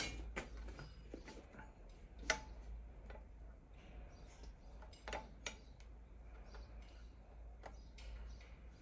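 Faint, irregular metallic clicks and taps, a few seconds apart, from hand tools and a small metal part being handled at a bench vise, over a low steady hum.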